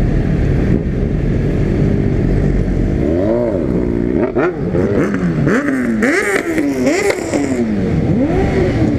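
Loud motorcycle engine running steadily, then revved up and down over and over from about three seconds in.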